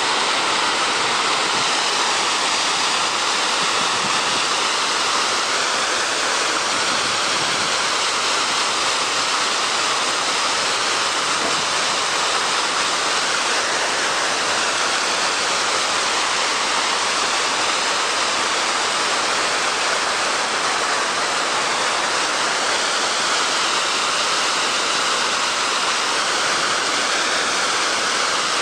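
Fountain with rows of vertical water jets splashing steadily into its basin, an even rushing of falling water.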